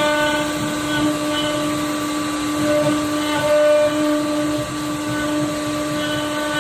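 Wood CNC router running: a steady whine over a constant rushing hiss, swelling a little now and then as it works.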